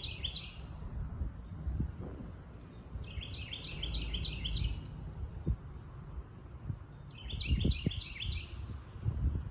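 A songbird singing short phrases, each a quick run of five or six high notes, repeated every few seconds. Under it runs a low rumble with a few soft thumps.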